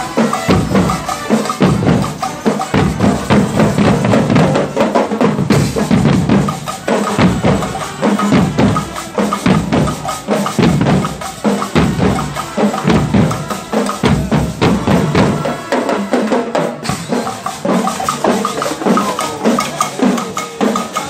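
Marching drum corps playing: many large bass drums beating a steady, fast rhythm together with snare drums.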